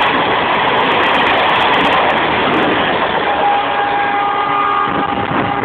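Train running at high speed: a loud, steady rushing rumble of wheels on track and air. A steady tone joins it about three seconds in.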